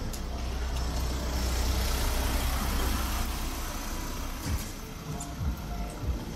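A car driving slowly past close by on a narrow city street. Its engine and tyre noise swells over about the first few seconds and then eases off as it moves on ahead, over a steady low traffic rumble.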